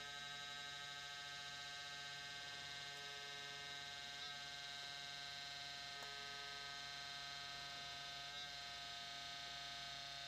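Faint, steady electric hum with a high whine from a small motor, the pump pulling vacuum on a furnace pressure switch under test, with a few light ticks.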